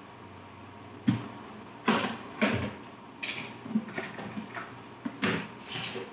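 Kitchenware being handled at the sink: a run of short knocks and clatters, around eight or nine in a few seconds, as dishes and utensils are set down and moved.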